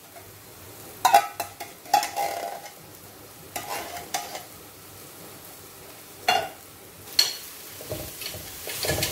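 Metal spoon clinking and scraping against a tin can as thick coconut cream is scooped out into a wok of frying spice paste, with a faint sizzle underneath. Near the end the cream is stirred into the hot paste and the sizzle grows louder.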